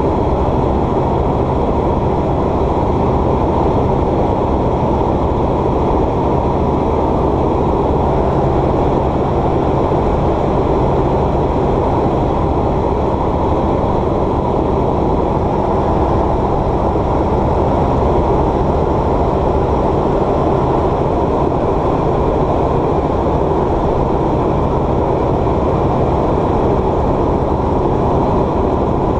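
Light single-engine aircraft's piston engine and propeller droning steadily in flight, heard from inside the cabin.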